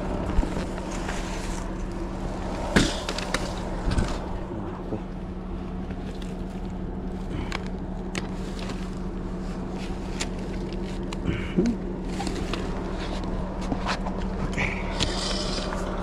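Steady drone of a motor vehicle with road noise, a constant low hum throughout and a few short knocks and rattles.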